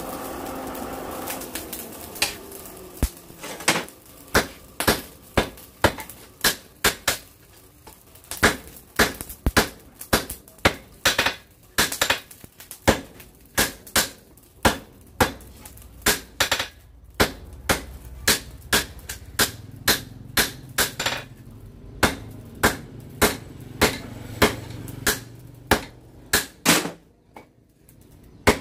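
Hand hammer forging a red-hot bearing-steel knife blade on an anvil: a long run of sharp, ringing strikes, about two a second, with a few short pauses. It opens with the forge blower's hum, which dies away about two seconds in.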